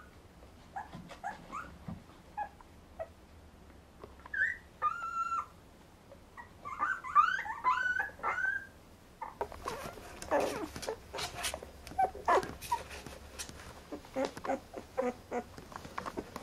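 Newborn Brittany puppies squeaking and whimpering in short, high calls, several in quick succession. About halfway through, a stretch of rustling noise takes over, with a few more squeaks mixed in.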